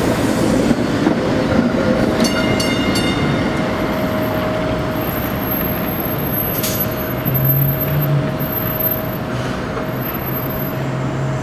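Kawasaki K-car light rail vehicle rolling away along curved street track, with a brief high wheel squeal about two seconds in, over steady city traffic noise. A low engine hum comes in during the second half.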